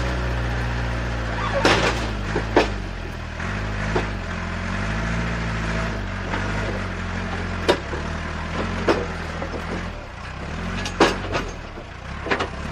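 Small motors of radio-controlled construction models humming, their pitch shifting as they work. Sharp knocks and clacks come at intervals, the loudest about 11 seconds in.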